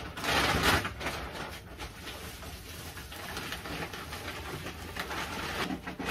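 Cardboard boxes and plastic sheeting rustling and scraping as they are handled and a flat box is pulled out, with a loud rustle near the start.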